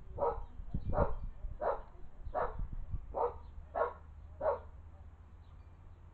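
A dog barking repeatedly, seven barks at a steady pace of about one every two-thirds of a second, stopping about four and a half seconds in.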